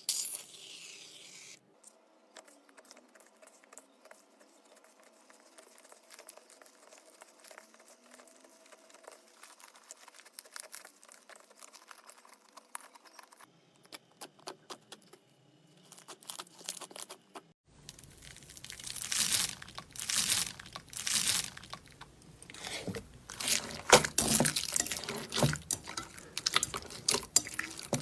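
Slime being squished and worked, giving wet crackles, clicks and small pops; faint for most of the time, then much louder and denser from about two-thirds of the way in.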